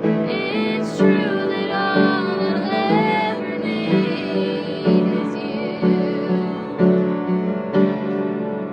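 Song with a female voice singing over piano chords.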